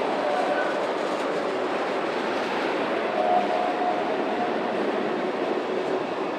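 Freight train cars rolling past, a steady noise of steel wheels on rail, with a faint brief tone from the wheels a little past the middle.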